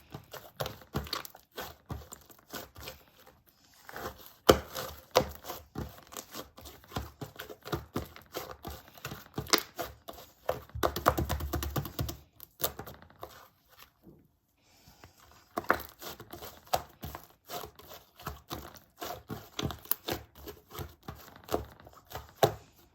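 Slime being kneaded and stretched by hand, giving a dense, irregular run of sticky clicks and crackles, with a short lull about fourteen seconds in.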